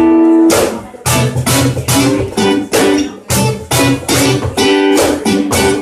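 Acoustic guitar strummed in a steady rhythm, about two strums a second, with chords ringing between the strokes.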